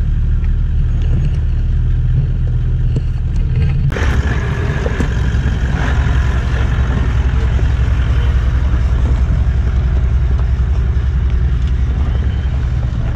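Off-road 4x4 engine running low and steady. About four seconds in the sound changes abruptly to a Toyota Land Cruiser 70-series crawling slowly up a rocky track close by, its engine at low revs, with stones crunching and clicking under the tyres.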